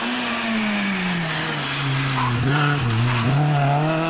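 Rally car engine dropping in pitch as the car slows for a tight hairpin, with a few short blips of the throttle about two and a half to three seconds in. It then rises again as the car accelerates out of the bend.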